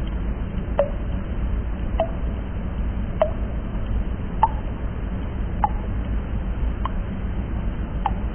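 Water drops falling into water at an even pace, about one every 1.2 seconds: each a sharp tick followed by a short pitched plink, seven in all, over a steady low rumble.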